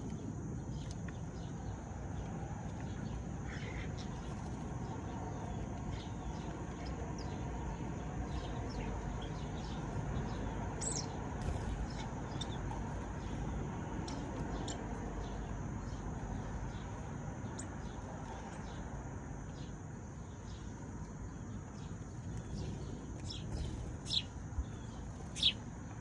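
Sparrows chirping: scattered short, high chirps over a steady low background rumble, with a few louder chirps near the end.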